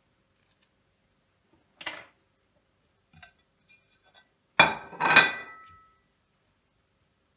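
Ceramic plate being handled on a kitchen counter: a soft knock about two seconds in, a few light ticks, then two sharp clinks about half a second apart that ring on briefly.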